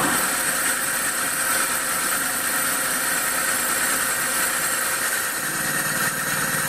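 Metal lathe machining a new hydraulic cylinder gland, the cutting insert working the spinning part: a steady high-pitched hiss and whine of the cut, with a low hum joining about five seconds in.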